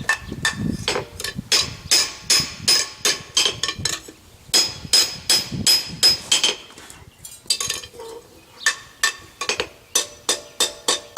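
Blacksmith's hammer striking hot steel on the anvil in quick runs of blows, about three a second, each blow ringing; the runs stop briefly about four seconds and seven seconds in. The blows are straightening out small bulges in the forged bracket.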